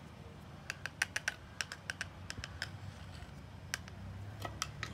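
Plastic spoon clicking and tapping against a plastic container while stirring grated lemon peel in olive oil: about a dozen irregular sharp clicks, bunched between one and two and a half seconds in, with a few more near the end.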